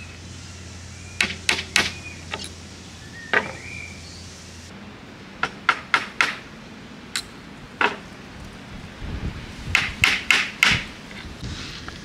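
Small wooden-handled hammer tapping small brass nails into a white board, in quick clusters of two to four sharp taps, about fifteen in all.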